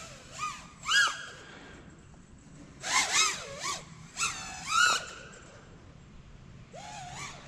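FPV quadcopter's brushless motors whining in short bursts as the throttle is punched, about six times, the pitch swooping up and down with each burst. Heard from a distance, picked up at the pilot's radio.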